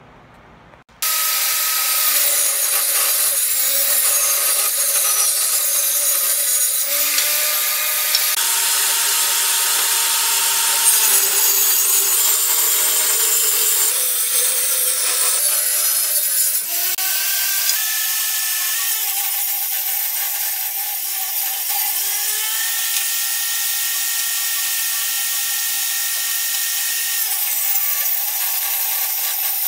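Table saw running and ripping hardwood boards into 2-inch strips. It starts abruptly about a second in, and the pitch of its whine steps up and down several times as the cut goes on.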